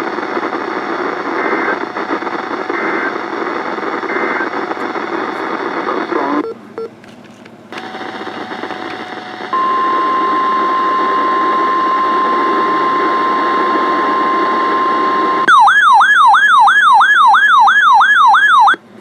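NOAA Weather Radio received through static, with three faint short beeps in the hiss and a brief dropout. Then comes the steady single-pitch warning alarm tone, held for about six seconds. It is followed by a louder warbling alarm tone whose pitch swings up and down about four times a second before cutting off abruptly.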